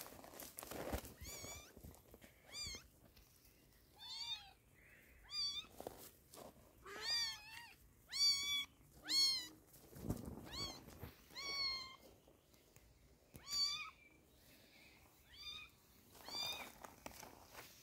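Young kittens meowing: over a dozen short, high-pitched mews, each rising and falling in pitch, some coming in quick pairs.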